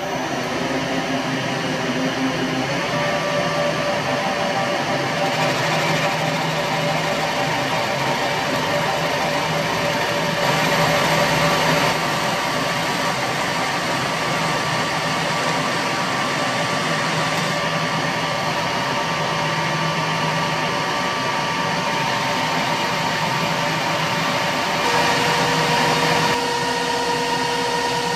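Metal lathe running under power while a carbide tool turns down the threaded shank of a steel M12 socket head cap screw to make a press-fit pin, the cut shearing off long stringy swarf. A steady running noise with whining tones that change pitch about 3 seconds in and again near the end.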